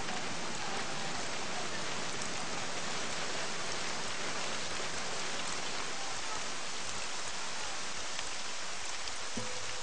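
Steady rain falling on wet ground: a dense, even hiss with scattered drop ticks. Music comes in with a few held notes just before the end.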